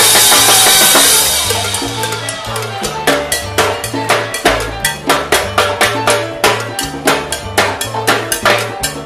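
Timbales solo over a salsa band. A loud, dense band hit with cymbal wash fades over the first second or so, then sharp, evenly paced strokes on the steel timbales continue over a stepping bass line.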